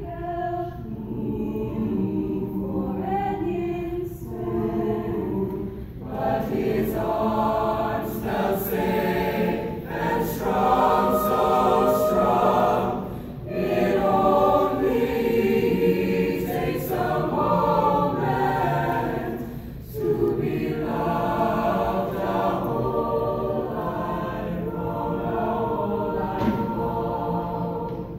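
A choir singing in harmony, with brief breaks between phrases.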